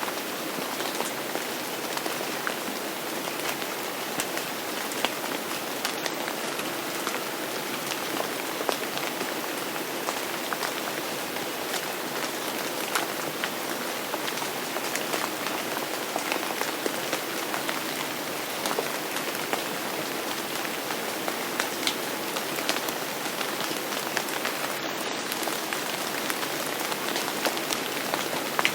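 Steady rain falling, with many individual drops ticking sharply on a surface over an even hiss.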